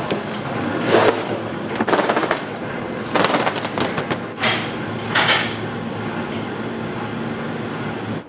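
Confectionery-making machinery running with a steady hum, with sharp metallic clanks and clatters about once a second over the first five or six seconds, then only the hum.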